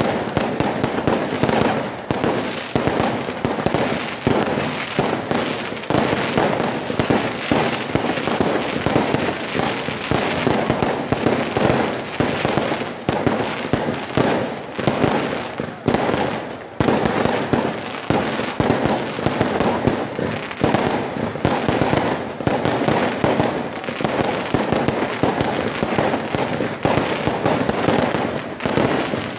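Firework display: a dense barrage of aerial shells bursting in rapid succession, bangs and crackling overlapping almost without pause, with a brief lull about halfway through.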